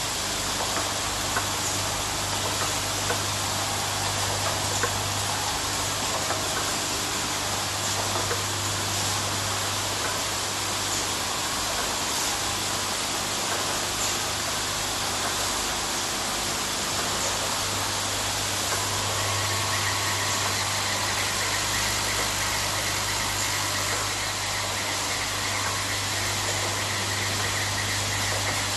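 A row of TX-148 automatic thread-tapping machines and their vibratory bowl feeders running: a steady low hum with a continuous hiss-like rattle of small metal blanks jostling in the bowls, and a few small ticks. A faint high whine joins about two-thirds of the way through.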